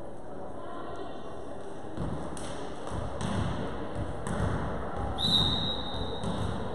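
Volleyball rally sounds in a sports hall: several separate thuds of the ball being struck and bouncing, and about five seconds in a referee's whistle blown once, held for about a second.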